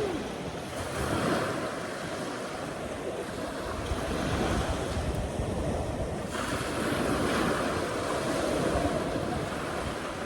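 Sleet falling in a strong wind: a steady hiss with gusts buffeting the microphone, the hiss growing brighter about six seconds in.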